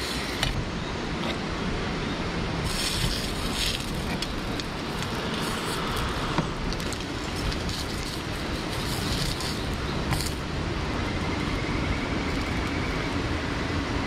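Steady rushing of a river, with sausages sizzling in a frying pan and a few light clicks of a fork against the pan.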